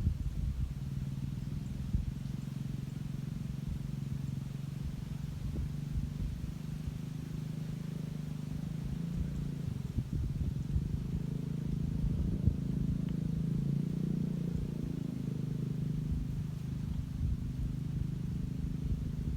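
Steady low rumbling hum with a few held tones, under a constant low buffeting of wind on the phone's microphone.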